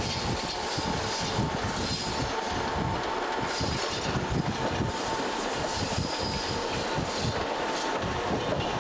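Passenger train rolling along the track, heard from inside the coach: a steady rumble with clatter from the wheels and rails.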